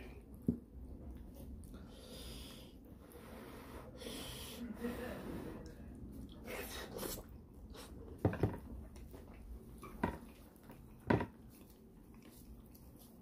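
Close-up eating sounds of a person chewing and sucking on braised pork leg in gravy: heavy breathing through the nose, with several short wet mouth smacks, most of them in the second half.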